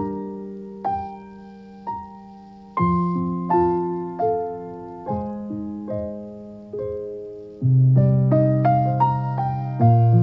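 Slow solo piano music: single melody notes struck about once a second and left to ring over held bass notes, growing louder and fuller with a deeper bass near the end.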